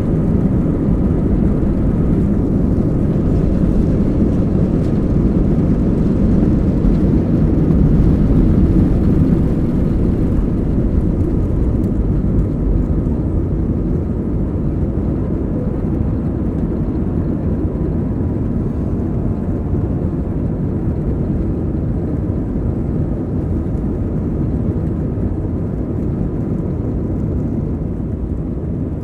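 Airbus A320 engines heard from inside the passenger cabin: a steady, heavy low rumble with faint steady tones. It swells to its loudest about eight to ten seconds in, then eases slowly.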